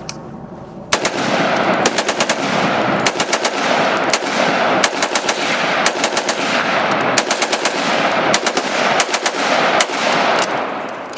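Rapid, sustained gunfire: shots in very quick succession begin about a second in and run for nearly ten seconds before stopping, with the reports ringing together into a continuous rattle.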